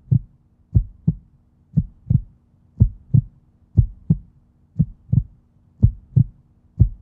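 Heartbeat sound effect: a low double thump, lub-dub, repeating about once a second, over a faint steady low hum.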